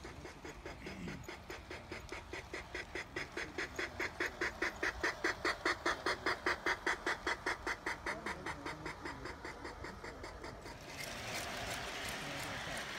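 G scale model steam locomotive chuffing in quick, even beats as it runs past, growing louder to a peak midway and then fading away. Near the end the chuffing gives way to a steadier rushing noise.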